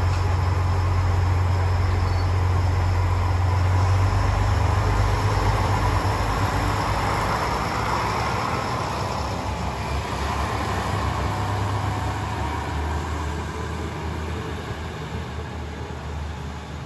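JR Shikoku 1000 series diesel railcar pulling away from a station platform: a deep steady engine hum with rolling noise from the cars, swelling as they pass close by in the middle, then fading as the train moves off.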